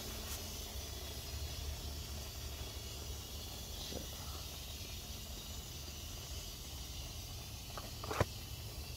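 Steady hiss of water spraying from a hose onto potted succulents, over a low hum, with a single sharp click near the end.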